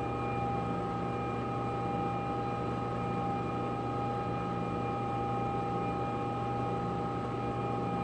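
Steady electrical hum with a few steady, high-pitched tones held throughout.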